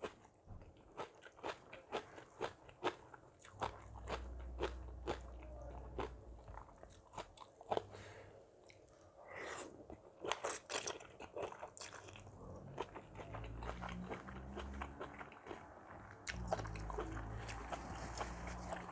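Close-up chewing and biting with many short crunches, from a mouthful of crisp seafood papaya salad (tam sua thale) being eaten.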